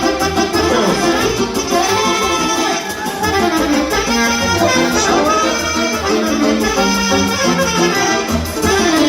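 Instrumental break in a Romanian folk-style song: the band plays a melody over a steady bass beat, with no singing.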